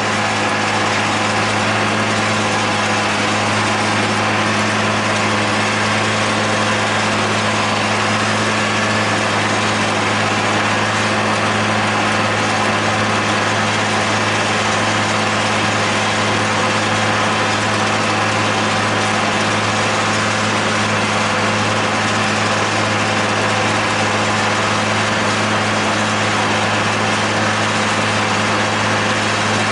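John Deere 8100 tractor's six-cylinder diesel engine running steadily under load, driving a John Deere 946 discbine mower through standing hay, heard from inside the cab. An even drone that holds the same pitch and level throughout.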